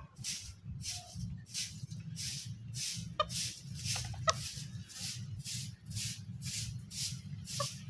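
A chicken clucking a few short times, over an even, rhythmic swishing about two or three times a second.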